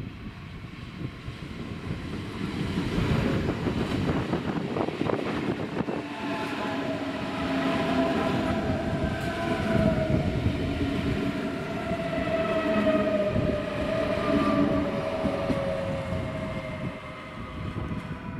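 Munich S-Bahn class 423 electric multiple unit running into a station: wheels rumbling on the rails while the electric drive whines. From about six seconds in, the whine slowly falls in pitch as the train brakes to a stop.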